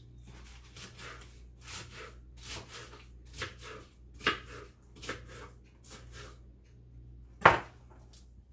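Knife chopping a head of iceberg lettuce on a plastic cutting board: a run of about ten sharp cuts, roughly one a second, the loudest near the end.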